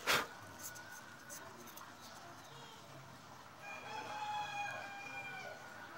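A rooster crows once: a single long, held call beginning about three and a half seconds in and lasting about two seconds. Right at the start there is a brief knock of handling noise as a hand passes close to the phone.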